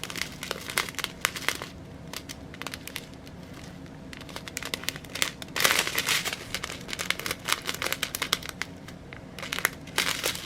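Small plastic bags of diamond-painting drills crinkling as they are handled, in dense crackly clusters that are loudest about halfway through.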